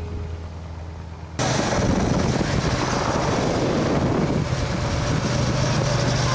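Low tail of music, then about a second and a half in a sudden, steady rush of wind and road noise on the microphone of a camera moving alongside a bunch of road cyclists.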